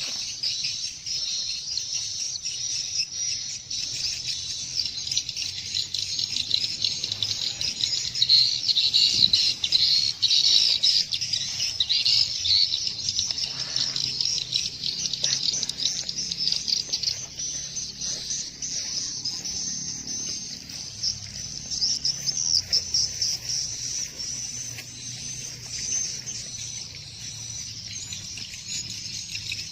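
Birds chirping in a continuous, dense, high-pitched chatter, busiest in the first half.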